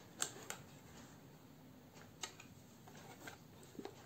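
Handling noise from a Mamiya C33 twin-lens reflex camera being turned over in the hands: about five short clicks and knocks at irregular times, the sharpest about a quarter of a second in.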